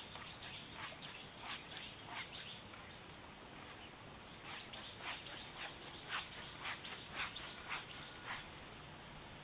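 Small songbirds chirping in runs of short, high notes: a looser run at first, then, after a brief lull about halfway through, a denser and louder run of chirps.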